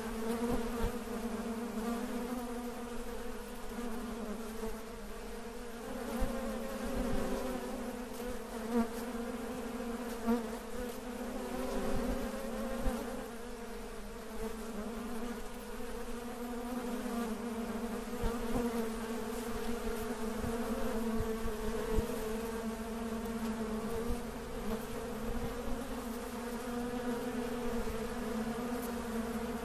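A steady low buzzing drone with a slightly wavering pitch, with a few faint clicks scattered through it.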